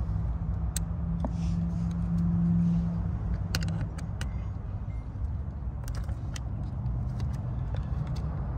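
Scattered light metal clicks and taps of a folding hex key set working the small screws of an under-seat light, over a steady low hum.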